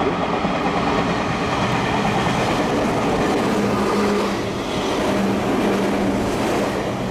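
Red Meitetsu electric commuter train running through the station at speed without stopping: a loud, steady rush of wheels on rail as the cars pass close by, with a low steady hum joining about halfway through.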